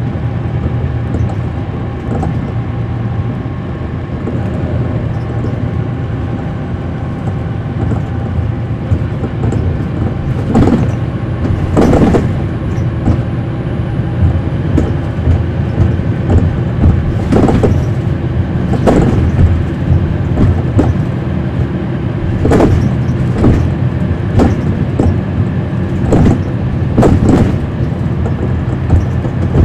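On board a 2010 NABI 40-SFW transit bus, its Cummins ISL9 diesel engine running with a steady low drone. Several sharp knocks come in over the second half.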